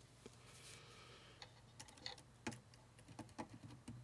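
Faint, scattered light clicks and ticks of a wire lead and small metal parts being handled while a jumper is fitted to the pot and switch lugs inside a tube amp chassis, over a low steady hum.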